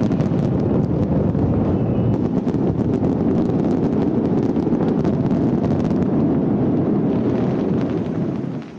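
Fireworks finale barrage heard from a distance: many shells bursting so close together that they merge into one continuous rumble, with crackling over it, dying away near the end.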